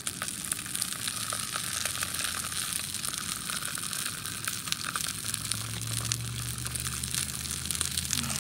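Whole bluegill frying in hot oil in a steel pan, with a steady sizzle full of small crackles and spits. A low steady hum rises under it about halfway through.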